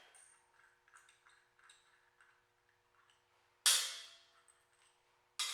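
Two sharp metal clinks from steel parts or tools knocking together on a steel sawmill track, each ringing briefly and dying away; the first, a little past halfway, is the louder, and the second comes about a second and a half later. A few faint small clicks come before them.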